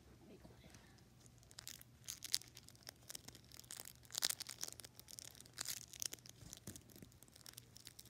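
Close rustling with irregular clicks and crinkles as someone rummages about right by the phone's microphone, handling things. A few sharper clicks stand out, about two seconds in and again around four seconds.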